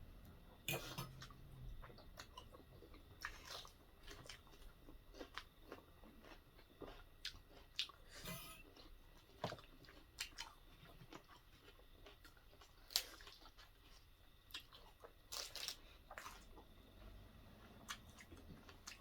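Mukbang eating sounds: quiet, irregular crunches and clicks of biting and chewing food.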